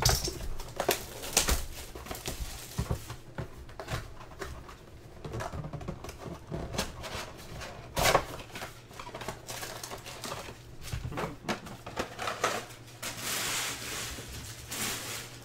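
A cardboard box of Panini Ascension basketball cards being opened and its foil-wrapped packs taken out and stacked: scattered clicks and taps of cardboard, with the strongest knock about 8 seconds in, and a crinkling rustle of pack wrappers near the end.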